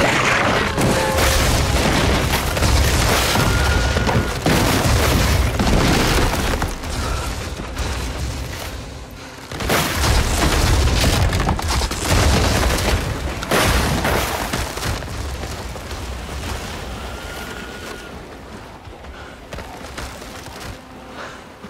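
Film sound effects of a frozen lake's ice cracking and breaking up: deep booms and rumbling with crashing noise, in two heavy stretches with a short lull between, then fading away over the last several seconds.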